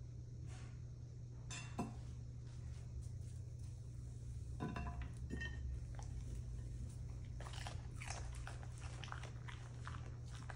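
Two husky dogs sniffing and nibbling radish slices off plates: small crunching and chewing clicks that become busier in the second half, with a single light knock about two seconds in.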